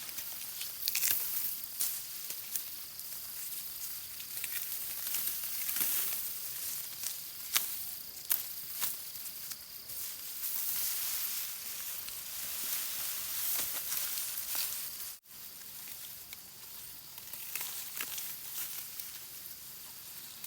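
Dry rice stalks rustling, with many short crackles and snaps, as the rice is cut and handled by hand. A faint steady high tone runs through the first few seconds, and the sound drops out abruptly for a moment about 15 seconds in.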